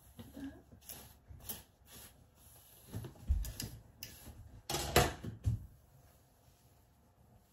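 Scattered clicks, taps and knocks of small objects being handled and set down, a dozen or so irregular strikes with the loudest about five seconds in.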